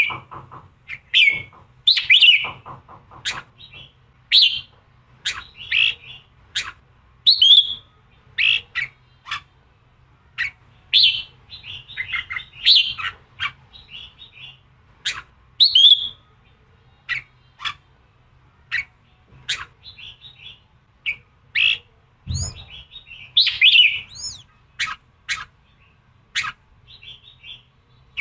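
Red-whiskered bulbul singing a run of short, sharp, clear notes and quick chirping phrases, one or a few every second. It is the competitive 'giọng kình' song meant to rouse male bulbuls. A single low thump comes about three-quarters of the way through, over a faint low hum.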